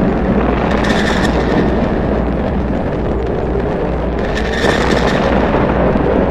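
Air raid siren sound with a dense, rumbling boom-like noise under it; a brighter burst recurs about every three seconds.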